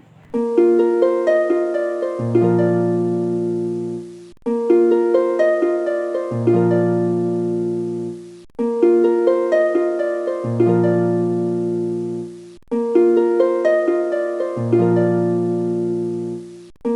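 Background music: a gentle plucked-string tune on harp-like tones, a short phrase looped four times with a sharp cut between repeats.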